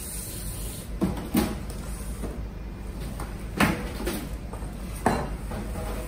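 Clunks and knocks of objects being set down and shifted on a steel tabletop, about five sharp knocks in all.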